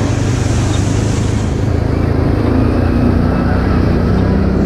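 Off-road vehicle's engine running steadily under way, a low drone whose note shifts about halfway through. A hiss of water and tyres in the first second and a half as it drives through a muddy puddle.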